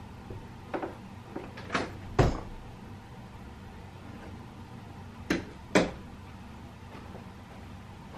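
Cupboard doors banging shut as someone rummages: a few light knocks building to a loud bang about two seconds in, then two more bangs close together about five and a half seconds in.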